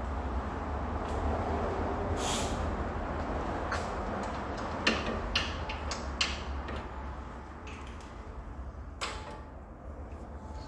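Hand tools clicking and knocking against metal in scattered single strokes during work on the car, over a steady low hum.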